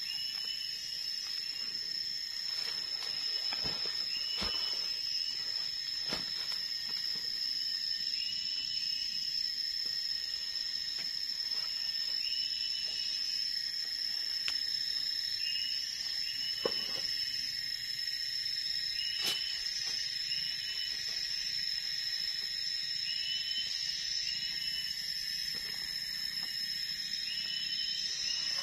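Tropical forest insect chorus: a steady, high-pitched drone, with a short chirping call repeating every second or two. A few light snaps and rustles in dry leaf litter are scattered through it.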